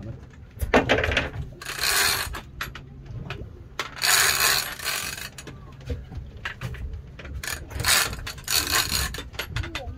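A heavy big-game lever-drag reel being cranked in short bursts, its gears and drag buzzing with each spell of winding as line is worked in against a tuna on the line.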